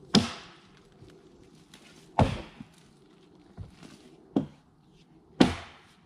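Axe chopping into a felled log: three heavy strikes a couple of seconds apart, with a lighter knock between the last two.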